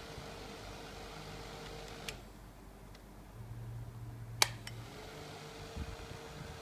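Small desktop USB fan's motor whirring steadily, then a click of its push button about two seconds in switches it off and the whir dies away. About four and a half seconds in, two sharp clicks of the button switch it back on and the whir rises up to speed again.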